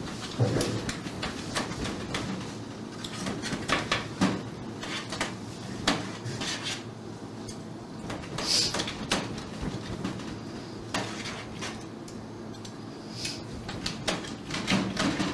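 Plates, pans and serving utensils clinking and scraping as food is dished up onto plates, in scattered irregular knocks, with one brief ringing clink about eight seconds in.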